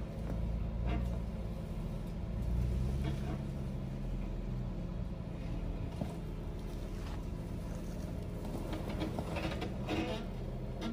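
Jeep Wrangler engine running steadily at low revs as it crawls up a rutted dirt trail, with a few brief knocks.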